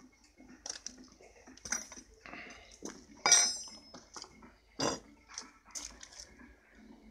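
Light metallic clinks and taps, with one loud ringing clank a little under halfway through and a sharp knock a bit later.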